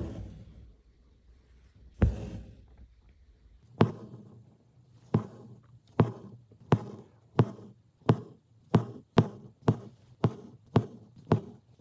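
Embroidery needle and three strands of pink embroidery floss being drawn through fabric stretched taut in a wooden hoop during satin stitching: a sharp tap with a short rasping tail at each stitch. The stitches come about every two seconds at first, then quicken to one or two a second.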